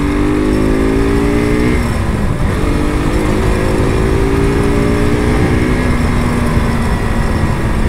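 KTM RC 200's single-cylinder engine pulling up through the revs, with a brief drop in pitch about two seconds in as it shifts up, then climbing again and settling to a steady cruise for the last few seconds.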